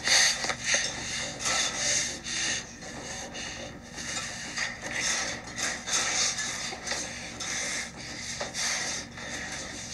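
Two men kissing: breathing, lip sounds and clothes rustling in repeated short surges, heard through a TV speaker.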